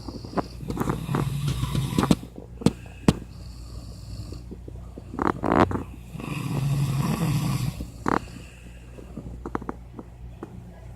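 A person snoring: two long, low snores about five seconds apart, with scattered sharp clicks and a couple of brief louder noises between them.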